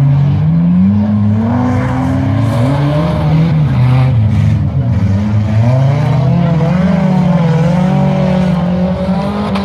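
Engines of several minivans and pickup trucks racing, revving up and down so their pitch keeps rising and falling.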